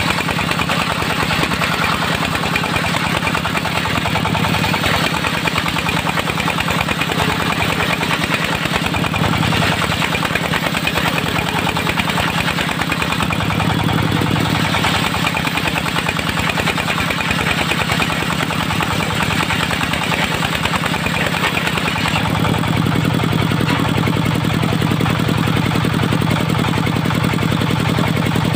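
Diesel engine of a mobile circular sawmill running steadily with a rapid knocking beat; its note changes about two-thirds of the way through.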